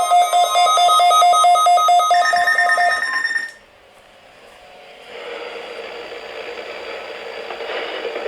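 Rapid electronic beeping, about ten beeps a second in two pitches, with a higher tone joining near the end; it cuts off sharply about three and a half seconds in. A steady radio static hiss follows.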